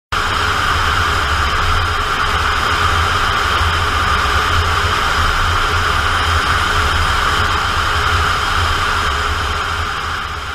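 Wind rushing past a camera mounted on an MDM-1 Fox glider in flight: a steady, loud rush of air with a low buffeting rumble on the microphone, fading out near the end.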